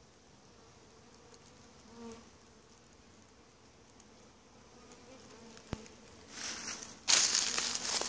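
Honeybees of a swarm buzzing faintly, with one bee passing close about two seconds in. About six seconds in, a sharp click, then loud crunching footsteps through dry leaf litter take over.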